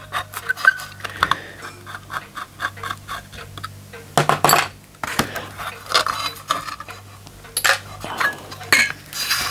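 Small metal clicks and clinks as screws are turned out of an Empco B-43 model steam engine's folded tinplate base with a screwdriver and the parts are handled. There is a louder clatter about four seconds in and again near the end.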